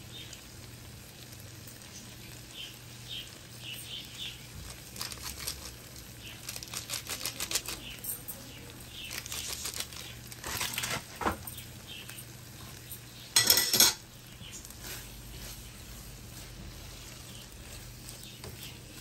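Silicone spatula stirring and scraping liver pieces around a nonstick frying pan, in runs of quick scrapes, with one brief louder burst of noise about two-thirds of the way through.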